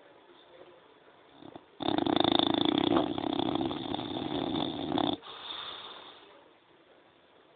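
French bulldog snoring: one loud snore lasting about three seconds that starts and stops abruptly, followed by a quieter, fading breath.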